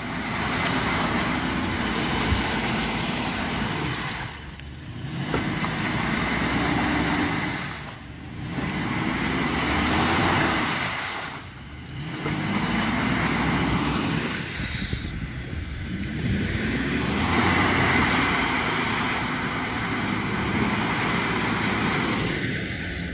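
Suzuki Grand Vitara's engine revving hard in repeated surges, dropping away about every three to four seconds, as the SUV is driven through deep mud and water. Its tyres spin and churn the mud and water under the revving: the vehicle is struggling for traction in the bog.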